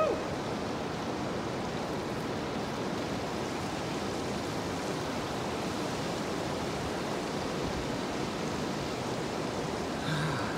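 Steady, even rushing noise of outdoor air or water, with a short pitched call near the end.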